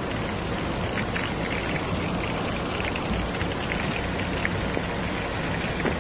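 Heavy rain on a car, heard from inside it: a steady rush of rain with many small drop ticks scattered through it.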